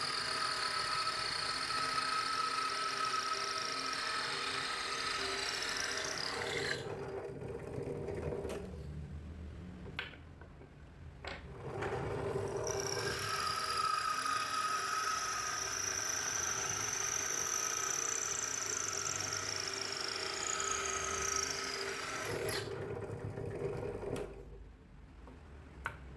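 An electric power tool running steadily in two long runs, the first about six seconds and the second about ten. Each run ends with the motor winding down. A couple of sharp knocks fall in the quieter gap between them.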